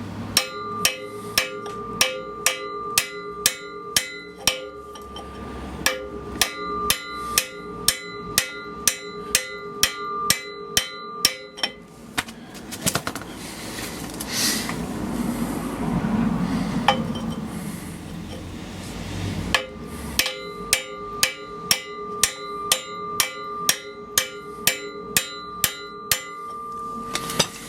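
Steady hammer taps, about two a second, on a metal drift or tube set against the inner race of an MGA rear wheel bearing, driving the bearing home. Each blow rings with a bright metallic tone. The tapping breaks off for several seconds in the middle, where there is duller handling noise, then resumes.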